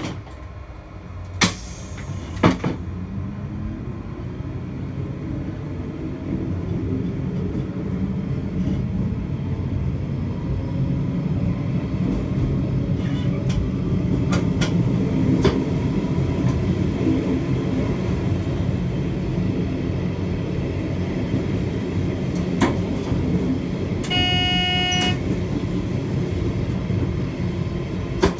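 A passenger train heard from its driver's cab as it pulls away and picks up speed. Its drive note rises in pitch and the running noise grows louder over the first several seconds, then settles into a steady rumble on the rails. A couple of sharp knocks come in the first few seconds, and a brief steady horn-like tone sounds near the end.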